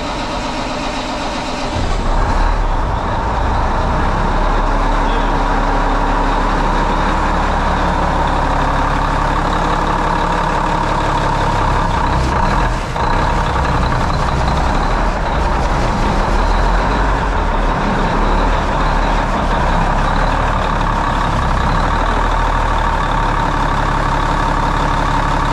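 Cummins N14 inline-six diesel engine running steadily just after being started on its newly replaced starter; the level settles up during the first two seconds, then stays even.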